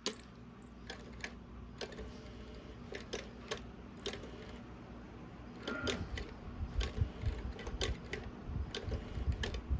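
Irregular sharp clicks and taps from a cat playing with an interactive toy. Dull low thumps join them in the second half.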